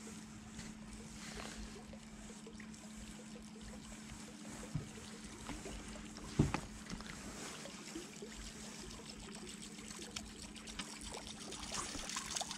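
Small boat on calm water with a faint trickle of water and a steady low hum, broken by two knocks, the second and louder about six seconds in. Near the end come quick splashes as a hooked cod thrashes at the surface close to the boat.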